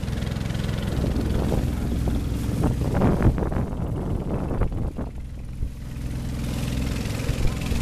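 Small motorboat's engine running steadily as the boat moves at speed, with water splashing at the bow, loudest about three seconds in.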